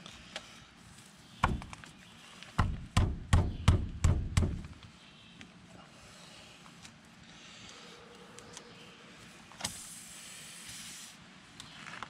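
Tire plug kit reamer being forced into a puncture in a tire tread: a thump, then about six heavy scraping pushes in under two seconds as the rasp works through the tire's cords, with a rough grinding feel. Later a click and a short hiss.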